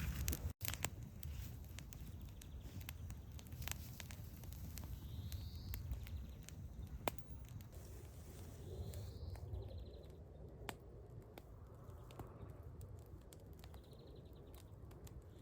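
Faint outdoor forest ambience: a bird gives a few short rising calls, spaced several seconds apart, over scattered light clicks and a low rumble.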